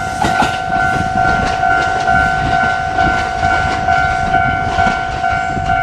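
Electronic warning bell of a Japanese railway level crossing ringing in a steady repeating two-tone pattern, over the rumble and clatter of a JR Hanwa Line train on the rails.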